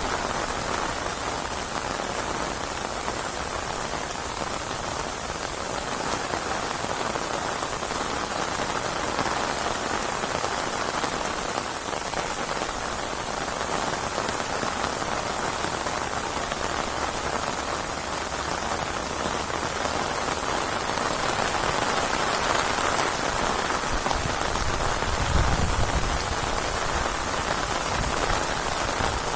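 Heavy rain falling steadily on surfaces, a dense, even hiss of many drops. A deeper low swell rises briefly about three-quarters of the way through.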